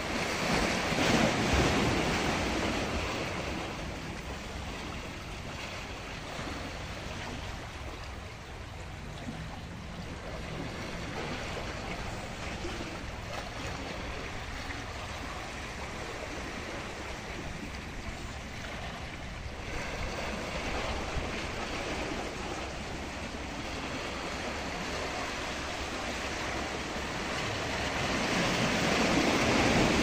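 Sea waves washing against shoreline rocks, with wind on the microphone. The surge swells about a second in and again near the end.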